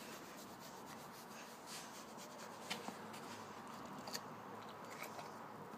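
Faint rubbing and scratching of a hand working over a dog's fur, with a few light clicks.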